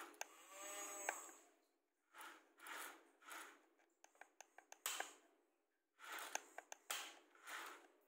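A toy excavator's small electric gear motors whirring in short stop-start bursts as the arm and bucket move, with sharp clicks from the plastic gearing in between.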